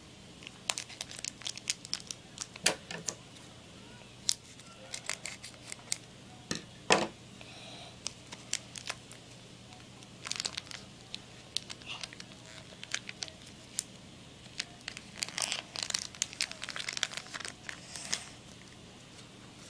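Naruto CCG booster pack wrapper crinkling and tearing as it is opened by hand, in many short crackles, busiest about ten seconds in and again from about fifteen to eighteen seconds in.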